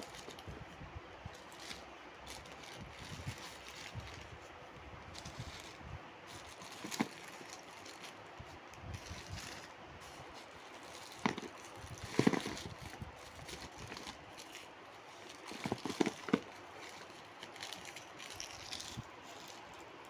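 Handling noises from unpacking a parcel: rustling and scraping with scattered sharp clicks and knocks, the loudest clusters about 11 to 12 seconds in and again around 16 seconds in.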